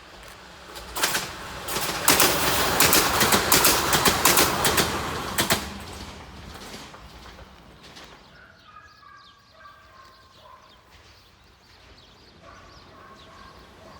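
Loud rapid clattering of train wheels over the rails for a few seconds, fading out after about five seconds. Then short, fainter bird calls repeat.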